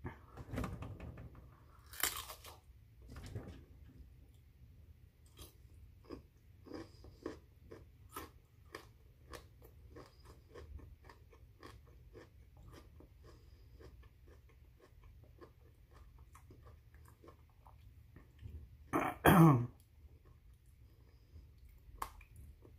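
Close-up chewing of broccoli florets, with many small crisp crunches. About nineteen seconds in comes one brief, much louder burst from the mouth or throat.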